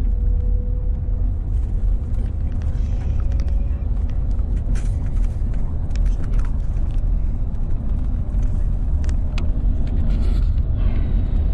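Steady low rumble of a moving road vehicle heard from inside, with a few light clicks and rattles.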